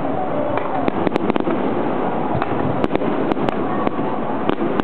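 Aerial firework shells bursting overhead, several sharp cracks and pops scattered through, over continuous crowd chatter.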